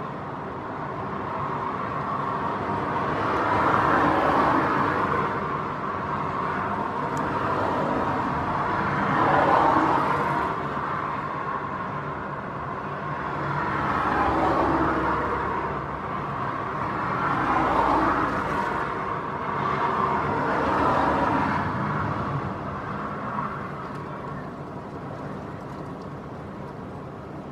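Airliner engines heard from the ground on approach in strong gusting wind: a steady drone under a rushing noise that swells and fades every few seconds.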